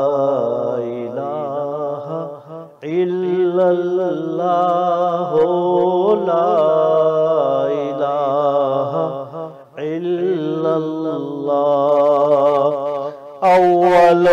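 A man singing a naat (Islamic devotional poem) unaccompanied in long, drawn-out phrases with heavy vibrato, with a steady low tone underneath. He pauses for breath about three seconds in and again near ten seconds, and the last phrase, begun just before the end, is louder.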